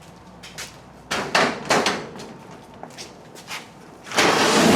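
A few sharp knocks and clunks, then a loud, even rushing noise from about four seconds in.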